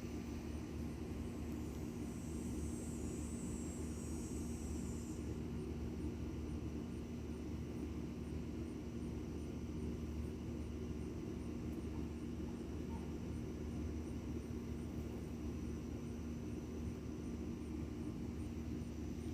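Steady low rumble with a constant low hum, unchanging throughout; a high-pitched sound joins it about two seconds in and stops abruptly about three seconds later.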